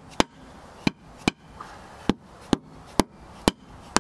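Dead blow hammer striking the metal cover plate of an excavator's HY-DASH final drive, about two blows a second, unevenly spaced, working the plate into its housing until it seats.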